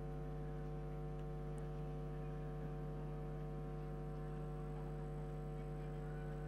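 Steady electrical mains hum, a constant buzz made of many evenly spaced tones that do not change.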